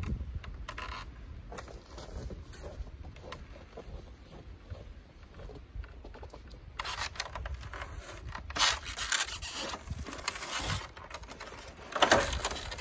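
Handling noise of work on a stepladder against a canvas tent: rubbing, scraping and light knocks, louder and busier in the second half. Near the end there is a sharp clatter as the stepladder is picked up.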